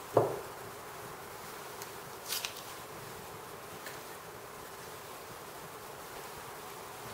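A steady buzzing hum in the background, with a short thump just after the start. About two and a half seconds in comes a brief dry rustle of chicken being pressed into breadcrumbs in a glass bowl.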